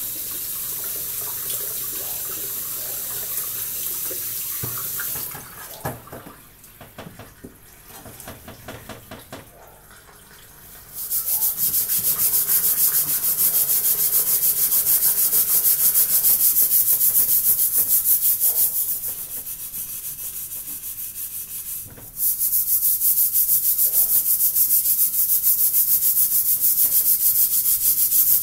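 Tap water running into a metal sink for about five seconds, then a quieter stretch of handling. From about eleven seconds a stainless-steel pot's blackened base is scrubbed hard and fast by hand with a gritty cleaning paste, giving a steady rasping rub that eases off for a few seconds near the end before picking up again.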